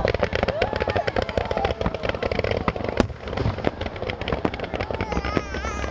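A barrage of fireworks fired in a line along the riverbank, crackling and popping rapidly, with many sharp reports packed close together over a low rumble.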